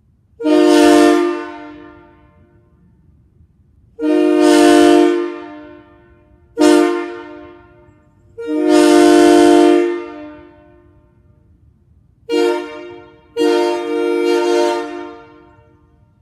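Multi-chime locomotive air horn sounding six blasts, long and short, each a steady chord that stops and fades out in an echo.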